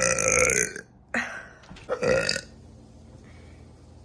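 A woman burping: a long, loud belch that ends about a second in, followed by two shorter burps.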